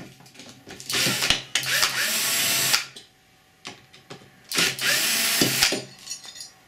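Cordless drill-driver with a screwdriver bit running in two bursts, the first nearly two seconds long and the second just over a second, backing screws out of a biscuit joiner's front fence plate.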